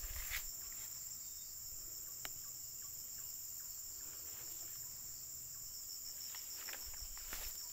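Steady, high-pitched chorus of insects chirring, with a few faint clicks near the end.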